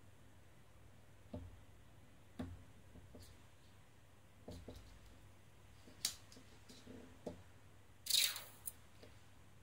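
Hands handling a small thin plastic tray on a table: scattered light clicks and knocks, and a brief louder crackle about eight seconds in as the tray is tilted and pressed.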